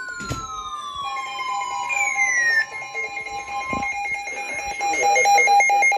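Weather radio emergency alert tones: a steady warning alarm tone stops about four seconds in, overlaid with falling siren-like glides early on and a fast, pulsing beep that gets louder toward the end.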